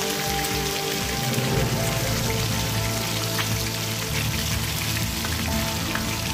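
Fish shallow-frying in hot oil in a frying pan: a steady sizzle with fine crackling, over background music.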